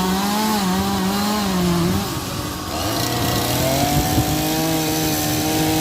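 Two-stroke chainsaw engine running at high revs while carving. The pitch drops off briefly about two seconds in, then climbs back and holds steady.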